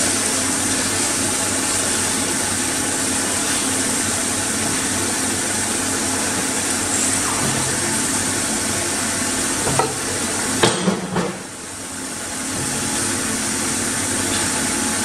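JAESPA 516268 horizontal band saw running with a steady mechanical whirr and hiss. A few sharp clanks come about ten to eleven seconds in, after which the noise briefly drops and builds back up.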